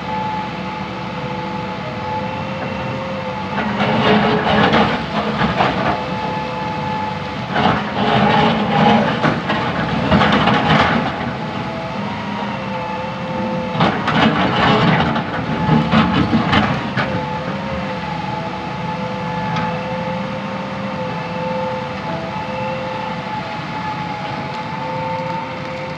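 Hitachi EX200-1 hydraulic excavator running with a steady whine, its bucket scraping and crunching into loose rock in three spells of a few seconds each.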